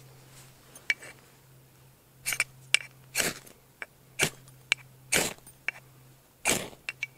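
A string of short, sharp scrapes, snaps and clicks, about a dozen in a few seconds, from hands working dry tinder and kindling to start a campfire.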